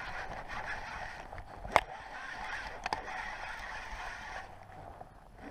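Baitcasting reel being cranked, its gears whirring steadily while a hooked fish, a small northern pike, is reeled in, with a sharp click nearly two seconds in and another about a second later. The whirring stops shortly before the end.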